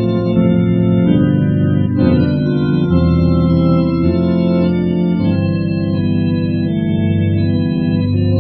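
FX 1 electronic organ playing a tune: held chords and melody notes over a steady bass line, changing every half-second to a second.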